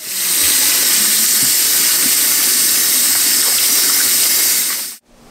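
Kitchen faucet running steadily, its stream splashing over tomatoes in a bowl in the sink as they are rinsed. The water sound cuts off suddenly near the end.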